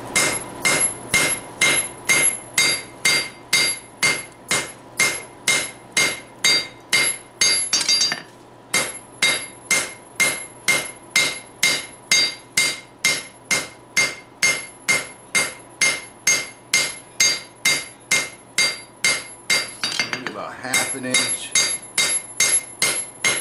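Hand hammer striking red-hot steel on an anvil in a steady rhythm of about two blows a second, each blow with a bright metallic ring: forging a bevel into a froe blade. A short pause about eight seconds in.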